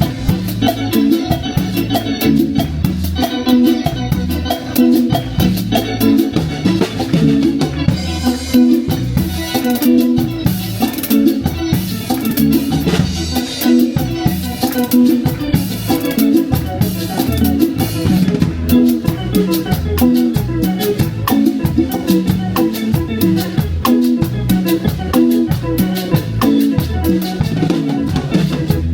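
Live band playing an instrumental passage in a Latin dance rhythm, with drum kit and a moving bass line and no singing.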